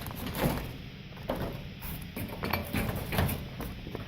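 Light metallic clinks and knocks from a garage door's hinge and roller hardware being handled, as its bolts are checked one by one for looseness.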